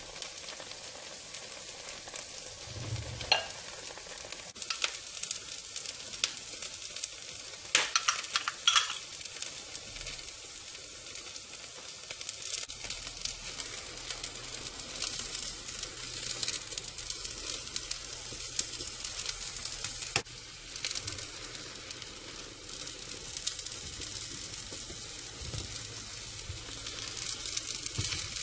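Carrot-and-egg omelette mixture sizzling in oil in a flat nonstick pan, a steady crackling hiss. A few sharp clicks and scrapes of plastic spatulas against the pan stand out, the loudest about eight to nine seconds in.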